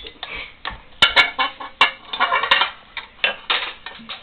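Metal kitchen utensils clashing and clinking together in a string of sharp, irregular strikes.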